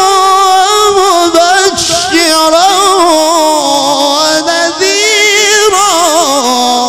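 A male qari reciting the Quran in the melodic mujawwad style into a microphone: one long melismatic phrase of held notes with rapid wavering ornaments, stepping down to a lower held note near the end.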